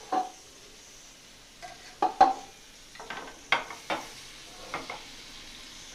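Butter sizzling faintly as it melts and foams in a non-stick frying pan, with a utensil knocking and scraping against the pan several times as the butter is pushed around; the loudest clacks come about two seconds in.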